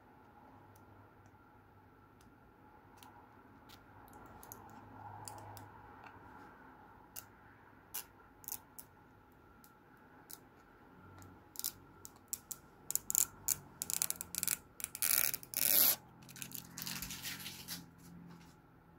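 Clear plastic protective film being peeled off the face of a 1997 Pinnacle Certified baseball card. There are a few faint clicks at first, then a run of sharp crackles and a longer tearing hiss as the film comes away in the second half.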